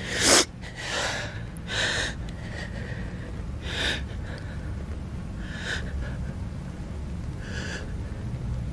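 A man sobbing: short, sharp gasping breaths, about six of them, the first the loudest and the rest coming further apart.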